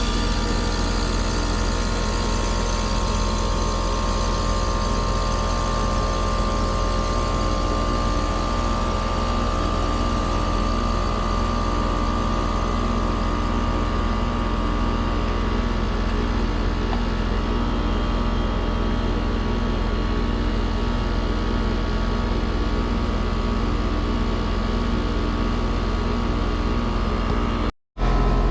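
Trane XR heat pump's outdoor unit running steadily in heating mode, its compressor and condenser fan making a constant low hum with a steady mid-pitched tone over it. The sound drops out for an instant near the end.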